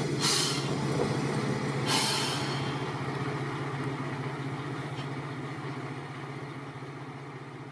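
Single-car diesel railcar of the Hisatsu Orange Railway drawing to a stop, its engine running with a steady low hum. Two short hisses of air from the brakes come about a third of a second and two seconds in, and the sound then slowly fades.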